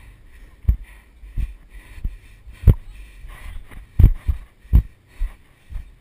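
Dull thumps of running footfalls on a sandy track, jolting a body-worn action camera, roughly three every two seconds over a faint rustle.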